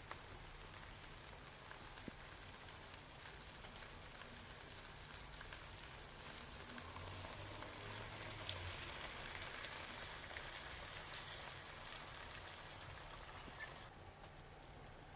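Food sizzling in a frying pan, a steady hiss with small crackles that grows louder in the middle and eases off about fourteen seconds in.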